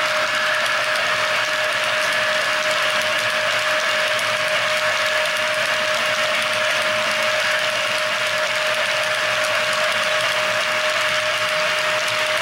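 HO-scale model tank cars rolling past on metal track, their wheels making a steady, even clatter. A constant high whine runs underneath.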